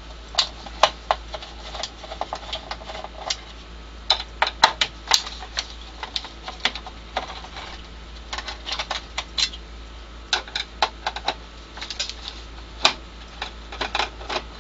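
A screwdriver and small screws clicking and tapping on the sheet-metal power-supply cover of an LCD monitor as the cover's screws are taken out. The sharp clicks come at irregular times, some in quick clusters.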